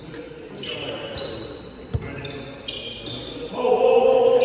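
Basketball play on an indoor court: sneakers squeaking on the floor and a ball bouncing once about two seconds in, with a loud shout from a player near the end.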